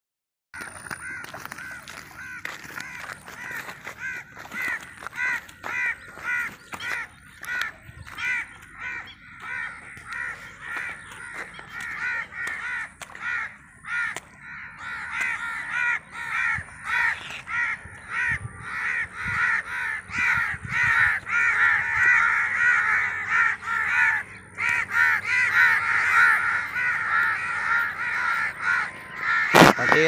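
Birds giving harsh, cawing calls over and over, several a second, growing louder in the second half. A single sharp knock comes near the end.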